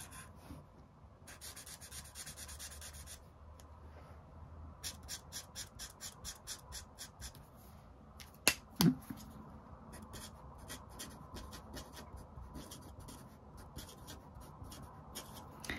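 Marker nib rubbing and scratching on paper: long strokes at first, then a quick run of short dabbing strokes, then the short strokes of handwriting. A sharp click and a knock come about halfway through.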